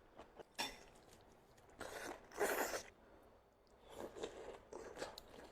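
Close-miked eating sounds from someone eating steamed chicken: irregular bites and chewing. A sharp click comes about half a second in, and the loudest rustling crunch comes around the middle.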